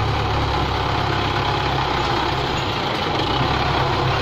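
Belarus 510 tractor's diesel engine running steadily at an even pace while it works its front loader.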